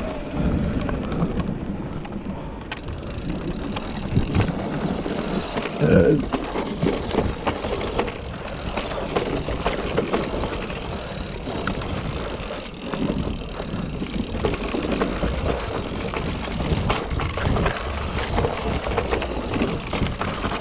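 Santa Cruz electric mountain bike ridden over a rough trail: steady tyre and wind rumble with constant rattling and small knocks from the bike, and a louder knock about six seconds in.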